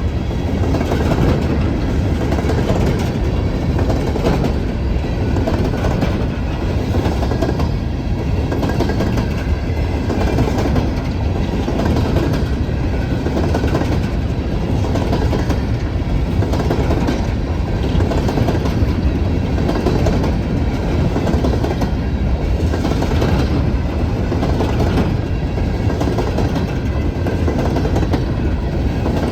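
Coal train's hopper cars rolling past at a steady speed: a continuous rumble of steel wheels on rail with repeated clicking over the rail joints.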